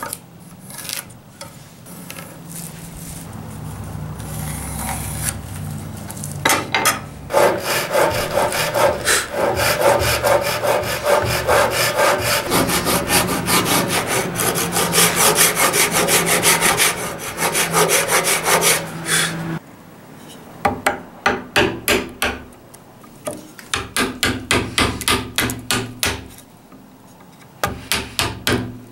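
Japanese handsaw cutting across a thick red oak board in fast, steady strokes, then in shorter runs with pauses as the dovetail housing kerfs deepen.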